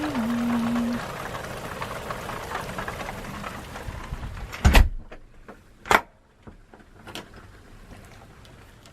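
Heavy rain pouring steadily, then a single loud thump about halfway through, after which the rain noise drops away sharply; two short clicks follow.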